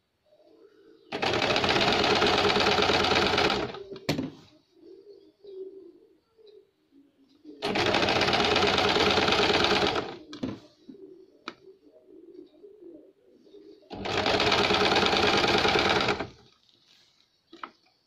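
Electric sewing machine stitching in three runs of about two and a half seconds each, stopping between them, with faint handling noise and a few sharp clicks in the pauses.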